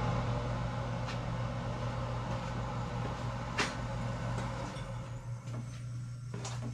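A steady low machine hum, with a few faint clicks over it, the clearest about halfway through.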